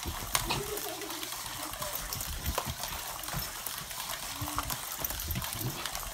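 Battery-powered toy car running through a clear plastic tube race track, a steady rattling hiss with many small clicks as its wheels run along the tubing.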